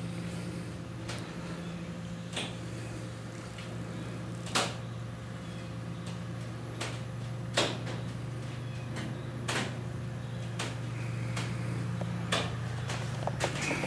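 A steady low hum, with sharp clicks or knocks every one to three seconds, the loudest about four and a half and seven and a half seconds in.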